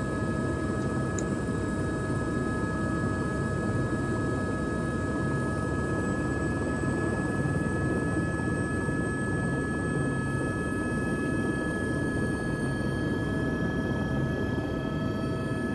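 Helicopter turbine engine and rotor running, heard from inside the cabin: a steady low rumble with a constant whine over it. In the second half a faint high tone climbs slowly as the helicopter builds power for lift-off.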